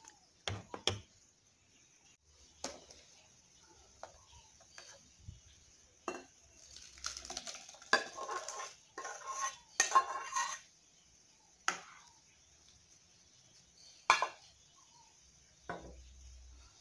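Metal spoon knocking and scraping against a stainless steel saucepan and a glass bowl, in sharp separate clinks. About halfway through comes a longer run of scraping and sliding as the cooked pineapple in syrup is scraped and poured from the pan into the bowl.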